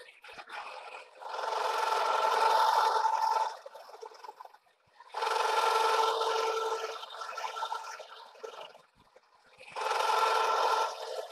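A 1-inch two-flute end mill in a manual milling machine cutting a flat on a metal tractor flywheel hub: three stretches of cutting, each a couple of seconds long with a steady ringing whine, separated by quieter pauses.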